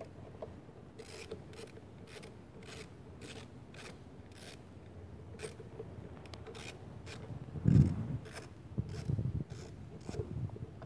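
Socket ratchet wrench clicking as it is worked back and forth to back a nut off the lawn mower engine: a long run of short sharp clicks, two or three a second. A louder dull thump comes about three-quarters of the way through.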